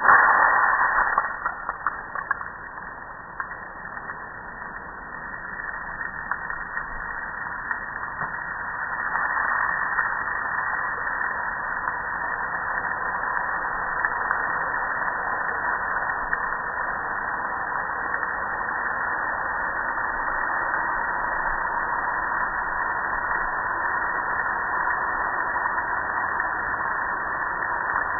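Spray of water hitting a gas grill's metal lid and panels, a steady hiss. It starts suddenly with a loud first second, then grows louder and steadier about nine seconds in.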